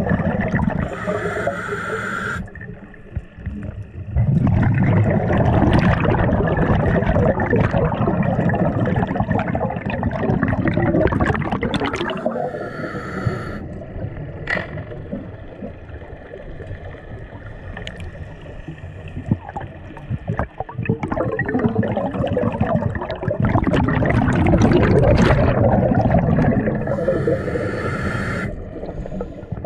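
Water sloshing and gurgling around the camera, rising and falling in loud spells.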